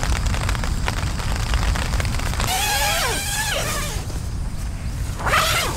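Tent door zipper pulled open in two strokes: a rasping zip with a wavering pitch lasting about a second and a half, then a shorter, louder zip near the end. A steady low rumble runs underneath.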